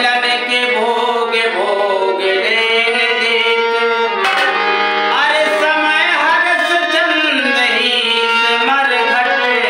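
A man singing a Bundeli devotional bhajan in long held notes that slide between pitches, over musical accompaniment.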